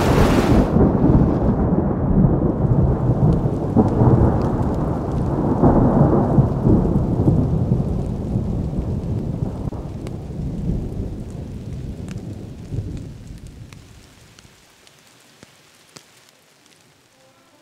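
A long, low rumble of thunder with rain. It swells several times, then dies away about fourteen seconds in, leaving faint scattered drop ticks.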